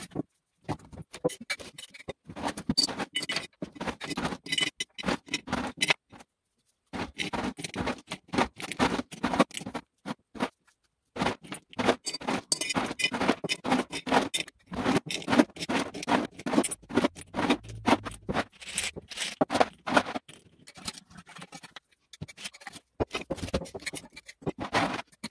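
Hard candies clattering and clicking as handfuls are scooped from a metal tin and dropped into glass mason jars, in quick rattling runs with a few short breaks.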